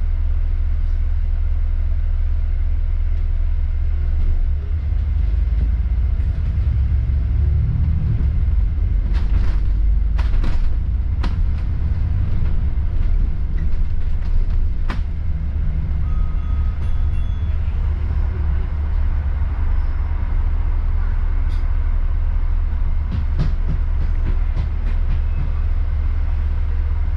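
Service bus on the move, heard from on board: a steady low drone of engine and road noise, with a few sharp clicks and rattles around the middle.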